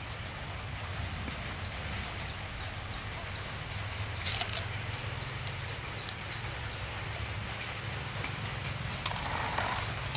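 Steady patter of rain, with a few short crunches and clicks as a dog bites and chews at a piece of fish held out by hand.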